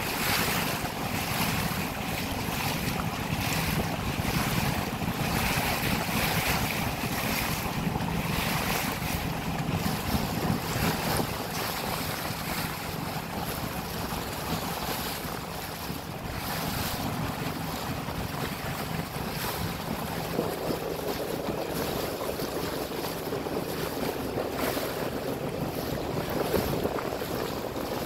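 A boat engine running with a steady low hum, water rushing past the hull, and wind buffeting the microphone.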